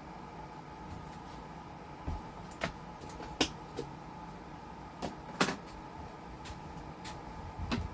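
About six sharp clicks and knocks of hard parts being handled, spread unevenly over several seconds, over a steady hum with a faint high tone running through it.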